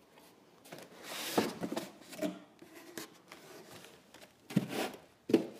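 Foam packing blocks being handled: a scraping, rubbing stretch about a second in as the foam section holding the filament spools is lifted off, then a few dull knocks near the end.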